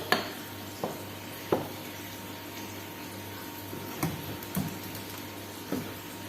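Kitchen cooking sounds: a steady hiss over a low hum, broken by six sharp, irregularly spaced clinks and knocks of a utensil against cookware.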